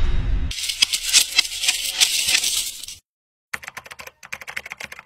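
Intro sound effects for a TV-channel logo. A low rumbling hit dies away at the start, followed by about two and a half seconds of crackling, clicking hiss. After a short gap come rapid keyboard-typing clicks as the tagline types onto the screen.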